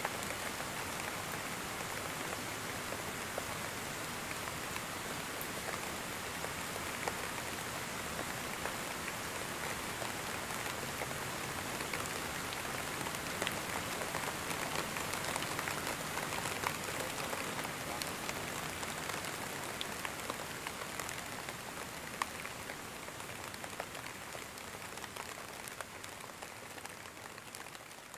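Heavy rain falling steadily, a dense patter with individual drops ticking through it, fading away over the last several seconds.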